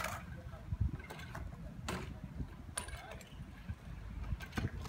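BMX bike rolling on concrete with a low tyre rumble, and a few sharp clicks: one near the middle and another near the end.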